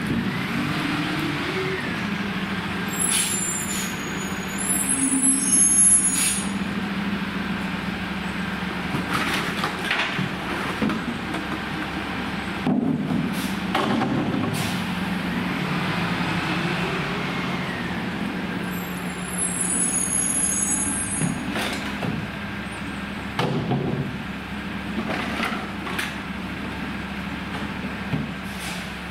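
Diesel engine of a Freightliner recycling truck with a Heil rear-loader body running steadily as it creeps between stops, with high brake squeals twice. Short knocks and clatters of recyclables and bins being tossed into the hopper come every few seconds.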